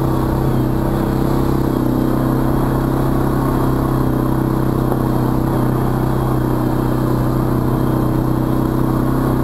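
Arctic Cat 700 ATV engine running at a steady speed as the quad rides along a muddy trail.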